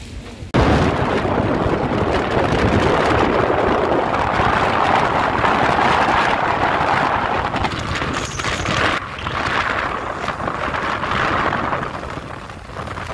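Wind rushing over the microphone of a moving vehicle, mixed with road noise. It cuts in suddenly about half a second in, then runs loud and steady.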